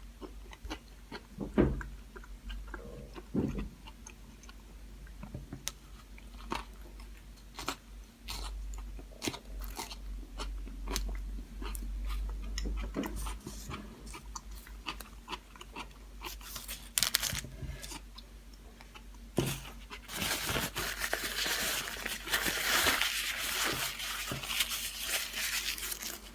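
Close-up biting and chewing of a tuna sub loaded with vegetables: irregular soft crunches and wet mouth clicks, with a louder stretch of rustling near the end.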